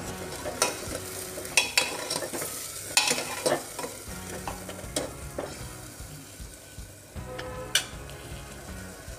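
Tomato puree sizzling in hot oil in a pressure cooker while a metal ladle stirs it, the ladle scraping and clacking against the pot several times.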